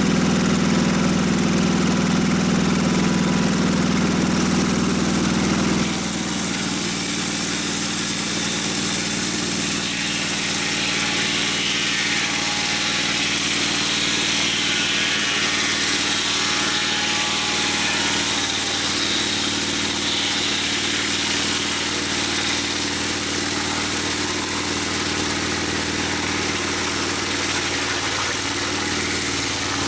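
Gasoline engine of a Mobile Dimension portable sawmill running steadily. About six seconds in its low hum drops slightly and a higher hissing sound comes up and holds.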